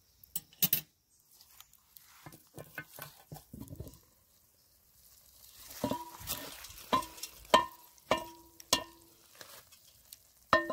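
Cast iron Dutch oven's coal-covered lid being lifted off: scattered scrapes and knocks of metal, then a run of about six sharp, ringing metal clinks about half a second apart, over a soft sizzle from the freshly uncovered lasagna.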